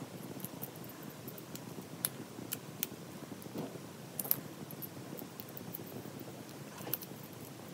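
Faint handling sounds: scattered small clicks and ticks of plastic straw pieces against fingernails as they are fitted over the nails, over a low steady room noise.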